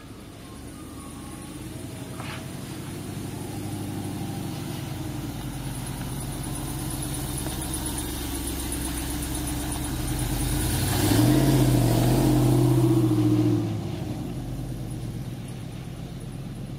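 Willys pickup truck's HEMI engine driving past, growing louder as it comes near. About two-thirds of the way through it is loudest and its pitch steps up as it accelerates, then the sound drops away sharply as the truck pulls off down the road.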